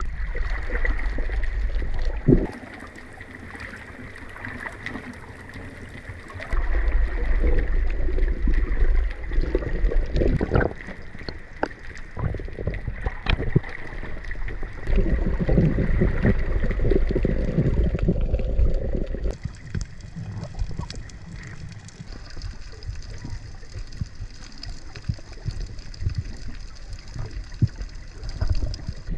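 Muffled water sloshing and gurgling picked up by a camera held underwater, with a few sharp clicks around the middle. The sound changes suddenly several times where the footage is cut.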